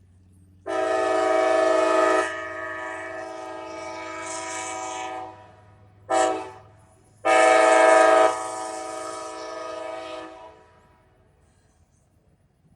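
Norfolk Southern freight locomotive's chord horn sounding a long blast that drops to a softer held tone, a short blast, then a final long blast, over a faint rumble of the train. This long, long, short, long pattern is the standard signal a train sounds approaching a grade crossing.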